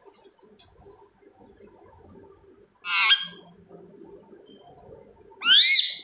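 Indian ringneck parrot giving two loud, harsh screeching calls: a short one about halfway through, and a second near the end that sweeps up and then down in pitch.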